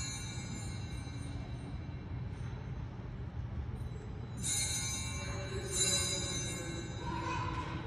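Altar bells rung by a server, two ringing shakes a little over a second apart about halfway through, signalling the elevation at the consecration. A low steady hum sits underneath.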